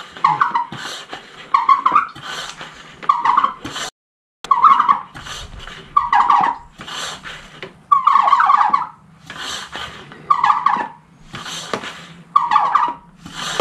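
Hand-pump garden sprayer being pumped about once a second, each stroke a squeak with a hiss of air. The sprayer is being pressurized to push motor oil through a hose into a 5.3 LS engine's oil system.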